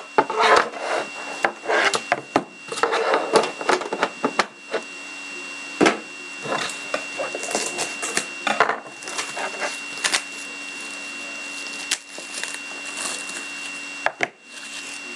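Handling noise of a sealed hockey card box being opened: the black metal tin's lid lifted, a knife slitting the seal along the inner box and the box worked out by hand. It comes as irregular scraping and rustling with scattered sharp clicks and knocks against the tabletop.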